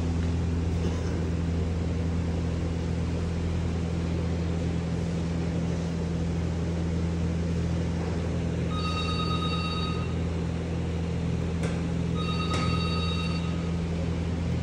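A steady low mechanical hum, with an electronic ringing tone at fixed pitches sounding twice in the second half, each ring about a second long and about three seconds apart.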